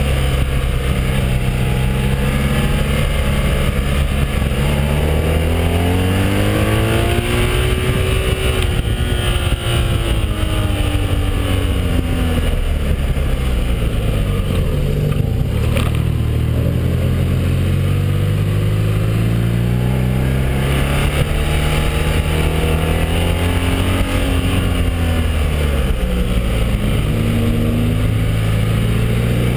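BMW R1200 boxer-twin motorcycle engine heard from the rider's seat while descending a winding road. The engine note rises and falls several times as the rider rolls on and off the throttle through the bends, over steady wind noise on the microphone.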